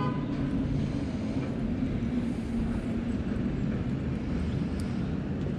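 A steady, low engine-like drone.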